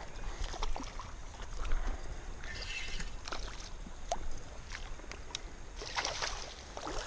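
Water sloshing and splashing with scattered small clicks as a hooked trout is brought in to the net.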